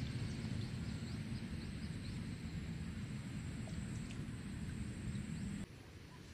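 Steady low outdoor rumble with a thin high steady tone and scattered faint high chirps, all dropping away suddenly near the end.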